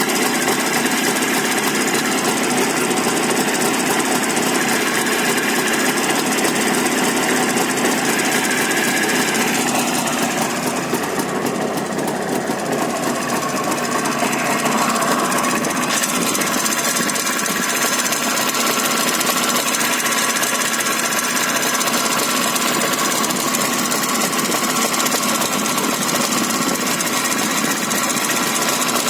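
Jawa 634 motorcycle's two-stroke twin-cylinder engine running with a rapid, continuous mechanical knock.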